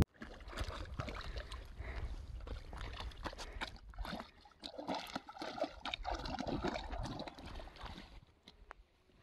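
German Shepherd wading through shallow lake water, the water sloshing and splashing around its legs in irregular strokes. The splashing stops about eight seconds in.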